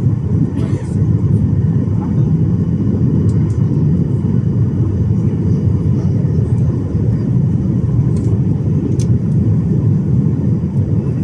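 Steady low roar of a Boeing 737's engines and airflow heard inside the passenger cabin on final approach, with a few faint high clicks.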